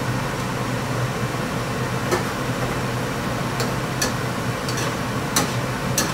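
A utensil clicking against a frying pan about seven times while tuna is stir-fried, over a steady low fan-like hum.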